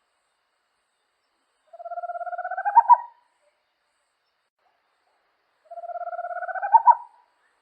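Small Amazonian owl calling twice, a few seconds apart. Each call is a fast trill of notes that rises slightly in pitch and ends in two louder notes.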